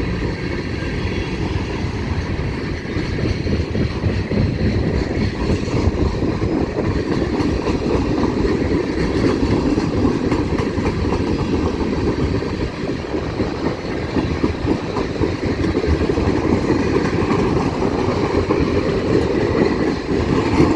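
CN freight train rolling past slowly, its cars' wheels running steadily on the rails as it picks up speed.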